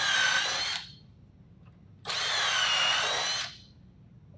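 Cordless drill boring pilot holes into wood boards in two short runs, each about a second long: the first ends about a second in and the second starts about two seconds in. The motor's whine sags in pitch as the bit bites and then picks back up.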